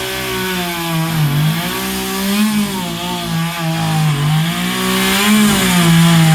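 Chainsaw engine running at high revs, its pitch sagging and recovering several times as the chain loads up in the wood.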